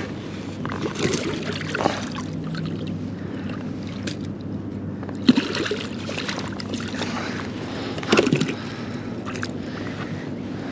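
Water sloshing against the side of a kayak, with several short splashes and knocks as a small catfish is unhooked by hand and dropped back into the river.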